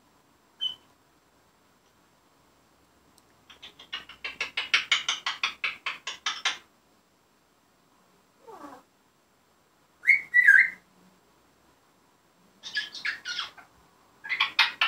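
Grey parrot vocalising: a rapid rattling chatter of about eight pulses a second lasting a few seconds, a short falling call, a brief two-note whistle, then more rattling chatter near the end.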